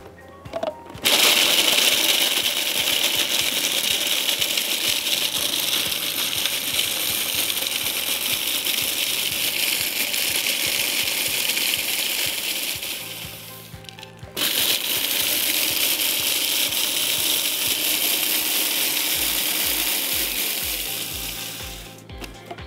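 Electric food processor grinding butter cookies into crumbs, the biscuit pieces rattling in the plastic bowl. It runs in two long bursts: about twelve seconds, a brief stop, then about eight more.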